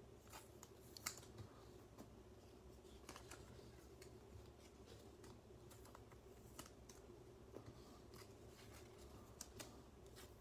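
Faint, scattered clicks and rustles of glossy trading cards being handled and flipped through in the hand, the sharpest click about a second in, over a low steady room hum.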